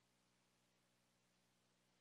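Near silence: dead air on the feed.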